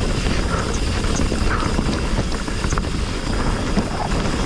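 A hardtail mountain bike running down a dirt trail: wind buffeting the microphone and tyres rolling over the ground, with scattered rattles and ticks from the bike.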